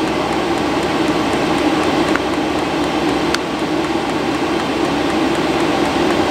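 5 kW Chinese diesel air parking heater running: a steady, loud whoosh of its blower and burner, with a strong low hum.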